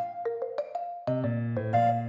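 Background music: a light tune of short, ringing struck notes over a low held note. It thins to a few sparse notes shortly after the start, and fuller chords return about a second in.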